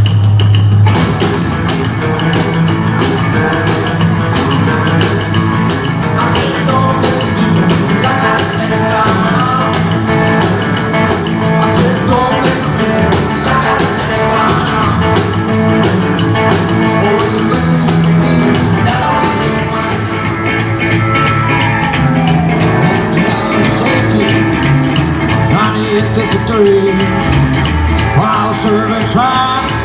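Rockabilly band playing live: slapped upright double bass, hollow-body and electric guitars and a drum kit, with a steady driving beat.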